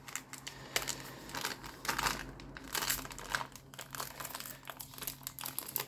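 A sealed blind pack of collectible figures being torn open and crinkled by hand, with irregular crackles throughout.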